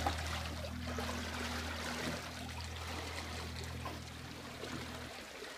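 Small motor driving a kayak along, a steady low hum over the churning and rushing of water in its wake. The sound grows fainter as the boat pulls away, and the hum stops about five seconds in.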